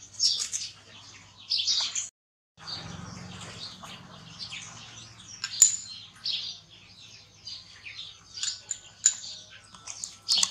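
Many short, high-pitched chirps and squeaks in quick succession, loudest near the start, with the sound cutting out for about half a second around two seconds in.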